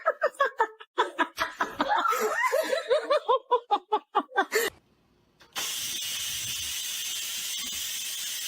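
A person laughing in quick repeated bursts for about four and a half seconds. After a brief pause, a steady hiss starts about five and a half seconds in.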